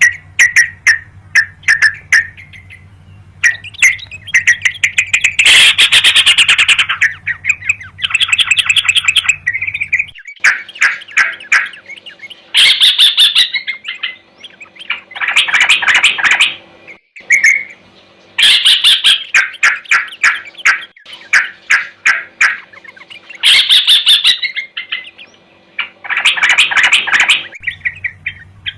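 Sooty-headed bulbul (crucukan) singing hard in loud, repeated bursts of rapid chattering chirps with short pauses between them. This is the 'gacor' challenging song used to lure and provoke rival birds. A faint steady hum runs beneath it.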